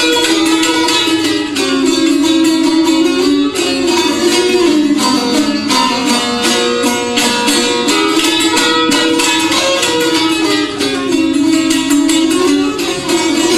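Duet of two long-necked plucked lutes playing a traditional folk tune. The strings are plucked in fast, dense strokes over a wavering melody.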